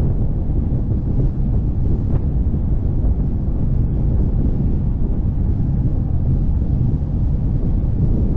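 Steady, loud low rumble of wind buffeting the microphone on a moving velomobile.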